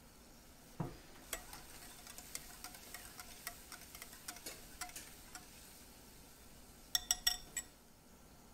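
Wire whisk stirring a thin liquid batter in a glass bowl, its wires clicking against the glass two or three times a second. It starts with a soft thud about a second in. Near the end comes a quick run of sharp, ringing clinks on the glass.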